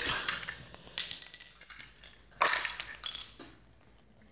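Plastic Lego bricks clattering and clinking against each other and a hard floor as they are handled, in a few short bursts: at the start, about a second in, and a longer rattle around two and a half to three and a half seconds in.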